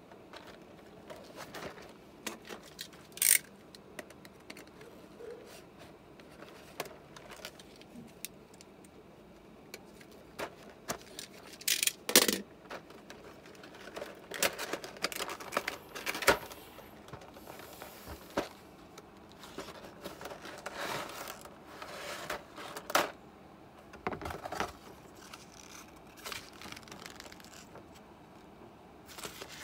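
Cardboard toy box and its clear plastic blister tray being handled: scattered taps, scrapes and rustles as the box is turned over and opened and the tray and paper leaflet are slid out, with sharp knocks about three and twelve seconds in and a stretch of denser rustling in the second half.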